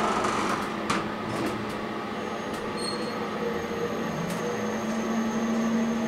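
Glass station elevator descending, its drive giving a steady low hum with a thin high whine. There is a click about a second in and a short high beep near three seconds.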